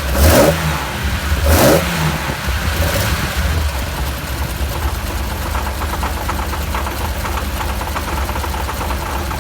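Tuned Nissan L28-based 3.0-litre straight-six on Solex carburettors, revved twice briefly and once lightly, then settling to idle with a rapid ticking: the abnormal noise the freshly built engine developed, which the uploader tags as tappet noise.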